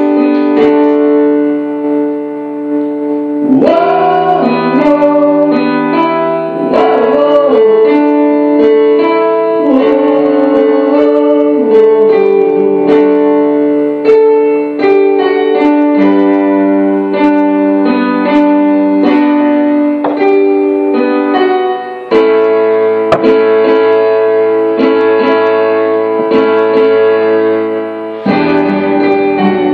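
A band playing a slow song, with guitar and keyboard holding sustained chords and a voice singing over them in places.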